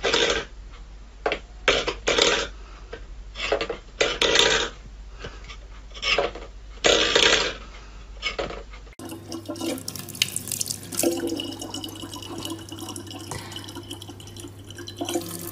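A steel pet bowl scraping and clattering on a wooden floor in short, irregular bursts. About nine seconds in, this gives way to a thin stream of water running from a tap into a plastic bottle over a steady low hum.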